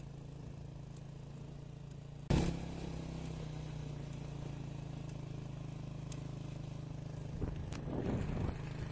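A vehicle engine running steadily at a low, even hum, with a sharp knock a little over two seconds in.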